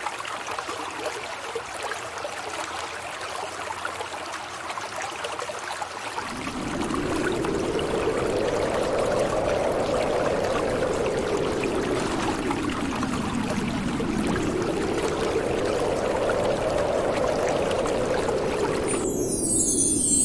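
Steady rushing noise like a flowing stream. About six seconds in, a deeper whooshing joins, slowly swelling up and sinking back twice. Near the end it gives way to high, sparkling chime tones.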